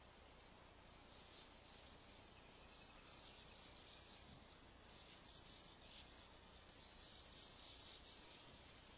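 Faint high, rapid twittering chatter of sand martins that sets in about a second in and comes and goes.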